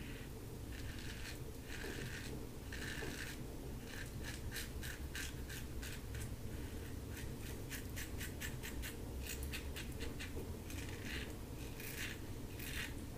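LASSCo BBS-1 stainless steel safety razor with a Gillette Silver Blue blade scraping through lathered stubble on the jaw and neck in short strokes, with a quick run of them in the middle. This is a touch-up pass for the last bits of stubble.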